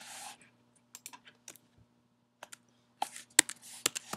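Keys being typed on a MacBook keyboard: a few separate key clicks, a pause of about a second, then a quick run of keystrokes near the end. A brief soft hiss at the start.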